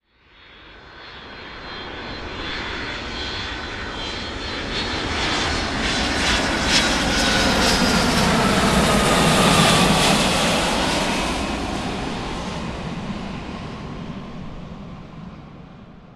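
Airplane flying past overhead. The engine sound swells out of silence, peaks about ten seconds in, then fades away, its pitch sliding down as it passes.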